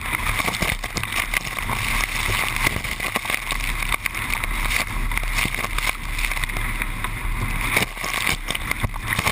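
Dart 18 catamaran under sail: water rushing and splashing along the hulls, with wind buffeting the GoPro microphone, uneven throughout.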